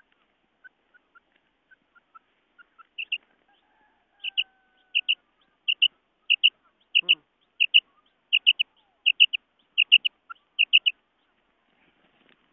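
Female quail calling: a few soft notes first, then a run of about a dozen loud, high, clipped double notes, one pair roughly every two-thirds of a second, stopping about a second before the end.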